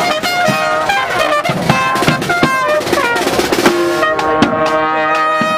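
Second-line brass band playing: trumpets and trombone over bass drum and snare drum, the horns holding a long chord near the end.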